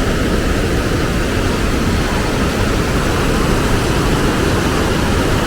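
Loud, steady rush of the Rogue River's whitewater pouring through its rocky gorge.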